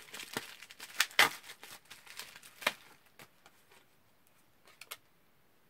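Bubble-wrap pouch being pulled and torn open by hand: crinkling and tearing with several sharp, louder crackles. The sound dies down after about three seconds, with a couple of faint clicks near the end.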